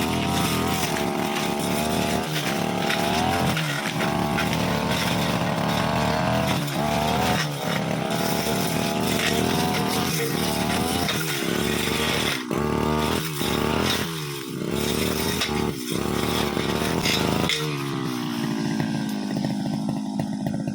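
Brush cutter engine revving up and down while cutting grass, with a few brief drops in speed in the middle; about three-quarters of the way through the throttle is let off and it falls to a steady idle.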